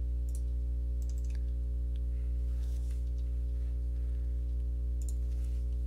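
A steady low hum with a few faint computer mouse clicks scattered through it.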